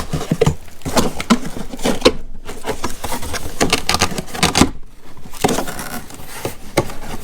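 Cardboard product box being laid down and opened by hand: irregular knocks, scrapes and rustles of the cardboard and its flaps.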